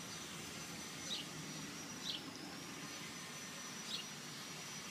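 Faint backyard ambience: a bird giving short high chirps every second or two over a steady thin high-pitched whine and a light hiss.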